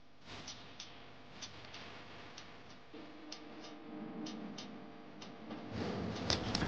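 Swimming-pool water swishing and lapping as a swimmer moves through it, growing louder with splashing near the end. Under it runs a rhythmic ticking, two quick ticks about once a second.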